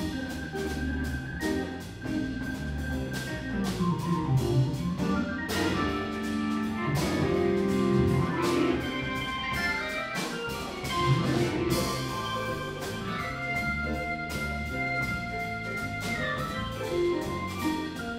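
Live blues band playing a swinging instrumental, the organ to the fore over electric guitars and a drum kit keeping time on the cymbals.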